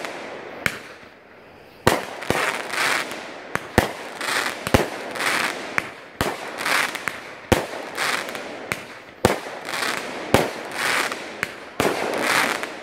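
Black Cat 'Rock Star' 200-gram, 25-shot fireworks cake firing shot after shot at about one a second, after a short pause about a second in. Each shot is a sharp bang followed by a brief spray of crackling from the crackle stars.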